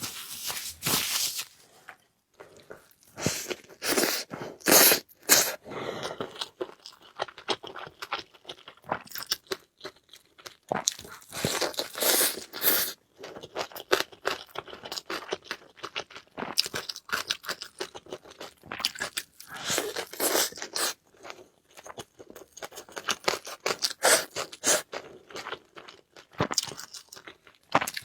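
A person eating, with crunching bites and chewing in irregular bursts of quick clicks and crackles.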